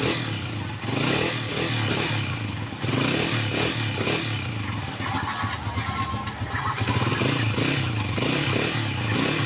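Honda TMX single-cylinder four-stroke motorcycle engine running steadily just after a tune-up (valve clearance and spark plug set); it is running well, with a few mild swells in engine sound.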